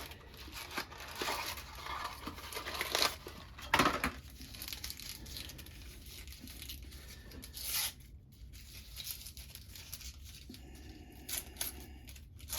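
Bandage wrapping being torn open and crinkled in short, irregular spells of tearing and rustling.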